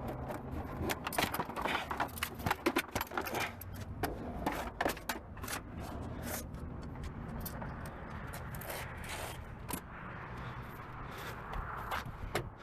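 Car dashboard parts being worked loose: many short plastic and metal clicks, knocks and rattles with some scraping, closer together in the first half.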